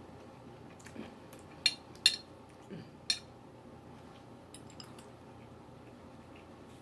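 A metal fork clinking against glass dishes while eating: three sharp clinks between about one and a half and three seconds in, with fainter taps around them and a few light ticks near the five-second mark.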